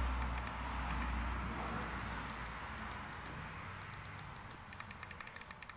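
Short runs of button clicks from an e-bike's handlebar display control pad, pressed again and again as the battery-voltage setting is stepped up. A low hum underneath fades away over the first few seconds.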